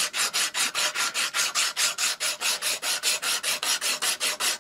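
A strip of 60-grit abrasive cloth pulled back and forth around a metal sleeve clamped in a vise makes a fast, even rasping of about five strokes a second. The sleeve is being sanded down by about half a millimetre because it binds where it should fit.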